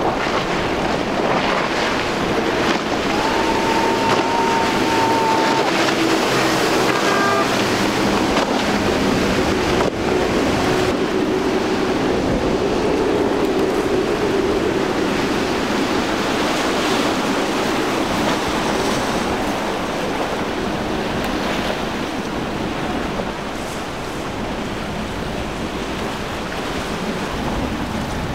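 Outboard motors of small center-console boats running at speed, a steady drone under the hiss of spray and waves, with wind buffeting the microphone. A brief steady high tone sounds a few seconds in.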